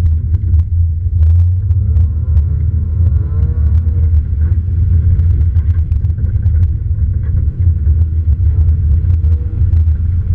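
Toyota 86 rally car driven hard on a gravel road: engine revs rising and falling several times under a heavy low rumble, with frequent sharp clicks of gravel striking the car.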